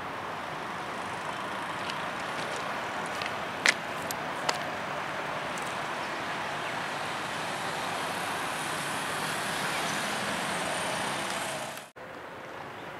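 Steady road traffic noise, with a couple of sharp clicks about four seconds in. The sound drops out abruptly shortly before the end.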